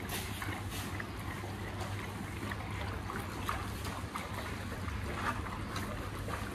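Several dogs lapping milk and eating roti from steel bowls: scattered small wet laps and bowl clicks over a steady low hum.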